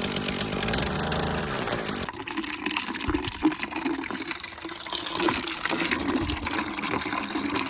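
Miracle-Gro fertilizer water pouring from a bucket onto the ground, a steady gushing splash. It follows a small engine hum that cuts off abruptly about two seconds in.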